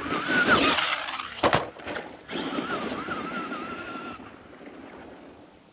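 Electric RC truck running at speed over gravel, its motor whining. A sharp knock comes about a second and a half in as it lands, then the motor whines again and cuts off at about four seconds.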